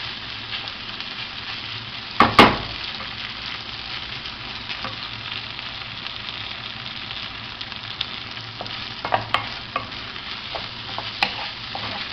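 Rice cooking in broth in a paella pan, a steady sizzle. Two sharp knocks of a utensil against the pan come about two seconds in, the loudest sounds here, and lighter taps follow near the end.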